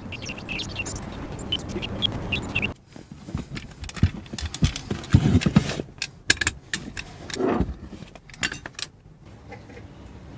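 Steady running noise with a low hum that cuts off about three seconds in, followed by irregular metallic clinks and knocks, and a longer scrape about three-quarters of the way through, typical of tools and metal parts being handled.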